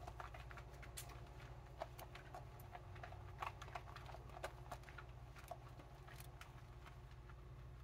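Faint wet squishing of soapy hands rubbing together and working thick body-wash lather over the wrists, a run of small, irregular clicks and crackles.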